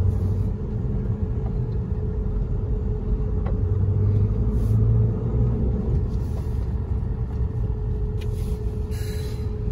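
Steady low rumble of a car's engine and road noise heard from inside the cabin as the car creeps along in slow traffic, with a faint steady hum over it.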